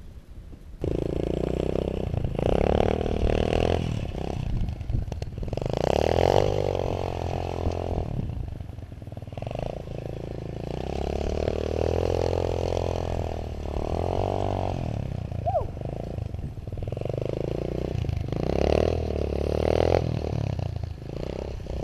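Dirt bike engine starting about a second in, then revving up and down over and over as the bike is ridden in circles on snow.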